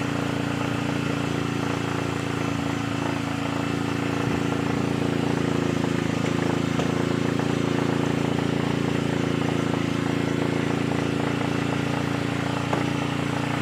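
A boat-mounted engine running steadily at idle: a constant drone that holds one pitch.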